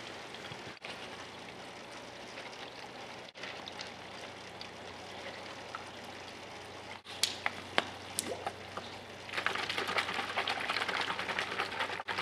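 A few light clicks of a plastic bottle being handled, then, from about nine seconds in, water sloshing inside the capped plastic bottle as it is shaken to mix in a supplement powder; the shaking is the loudest part.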